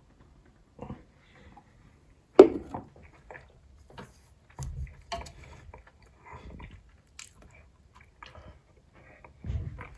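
Close-up chewing and biting of someone eating chicken-skin gyoza, with scattered small clicks. The loudest is a sharp knock about two and a half seconds in, and a duller thud comes near the end.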